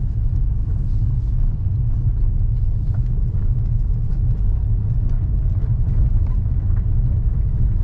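Car driving along a road, heard from inside the cabin: a steady low rumble of engine and tyres, with faint light ticks now and then.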